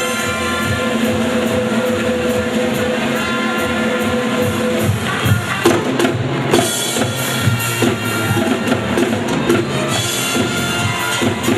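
Background music for a circus act: held chords, then from about halfway a drum-kit beat takes over.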